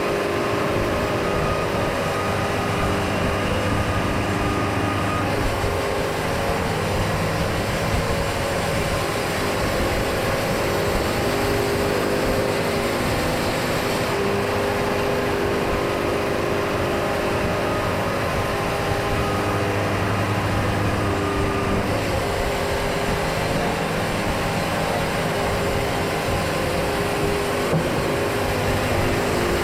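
Band sawmill running steadily, its engine tones shifting slightly every several seconds.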